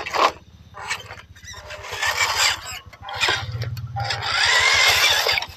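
WPL C24 RC crawler truck driving close past the microphone, its tyres and chassis scraping and crunching over dirt, rock and dry leaves in rough bursts, the longest starting about four seconds in.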